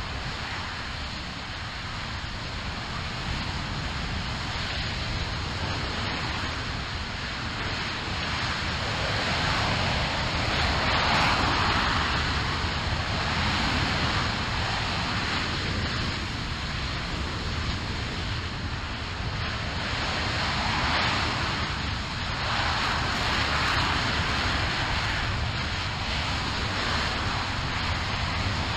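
RS-25 liquid-hydrogen/liquid-oxygen rocket engine firing on a test stand during a full-duration hot-fire: a steady rushing noise over a deep rumble. The rush swells and eases several times.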